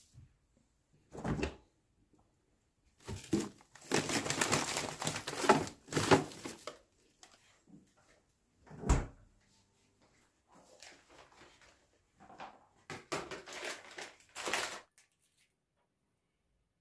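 Kitchen items being handled and put away: short spells of knocking and rustling, with one sharper knock about nine seconds in, stopping about fifteen seconds in.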